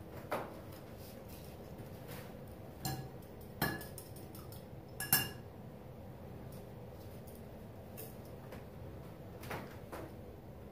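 Metal palette knife clinking against a hard container, a handful of sharp clinks, the loudest about five seconds in with a short ring.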